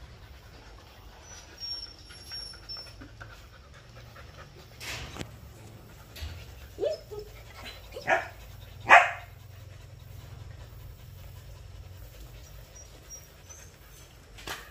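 Belgian Malinois puppies, about 80 days old, in a pen: a few short, scattered barks and yips, the two loudest close together about eight and nine seconds in, over a low steady hum.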